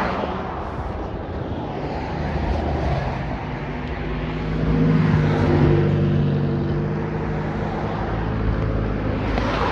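Road traffic: a motor vehicle passes close by, its engine hum building, loudest about five seconds in, then fading, over steady traffic noise.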